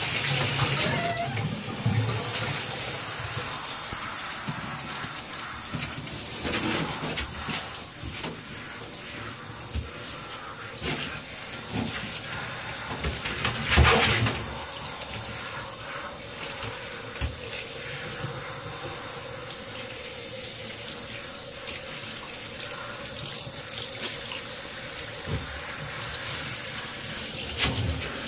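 Water running from a handheld shower head into a bathtub and over a wet puppy being rinsed, a steady hiss of spray. It gets briefly louder about halfway through, and a faint steady hum joins in the second half.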